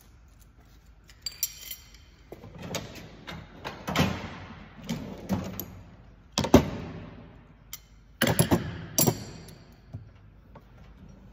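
Metal tools and car parts clanking and knocking in an irregular series, some strikes ringing with a bright metallic tone; the loudest knock comes a little past halfway.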